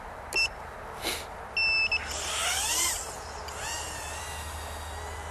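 Two short electronic beeps, then the Tinyhawk 2 Freestyle micro quad's brushless motors spinning up in a few rising-and-falling high whines. They settle into a steady high whine as the drone flies.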